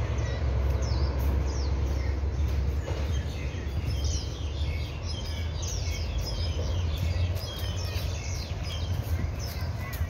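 Many small birds chirping in the trees, short quick calls overlapping throughout, over a steady low rumble.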